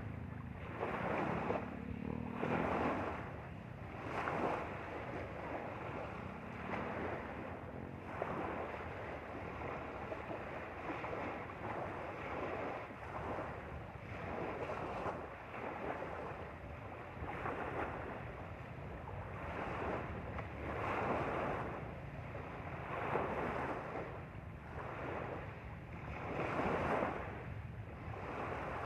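Small lake waves lapping and splashing against a rocky shore, swelling in a fresh wash every second or two.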